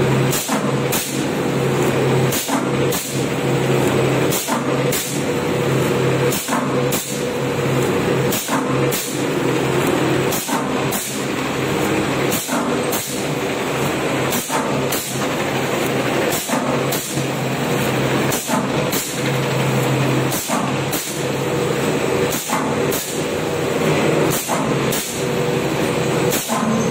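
Automatic cello tape making machine running: a steady motor hum with a sharp tick repeating about twice a second.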